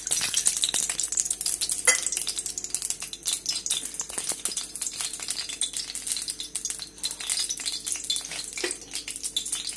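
Desi ghee and refined oil heating in a steel kadhai, crackling and sizzling with a dense patter of small pops, with one sharper click about two seconds in. The oil is coming up to temperature for tempering spices.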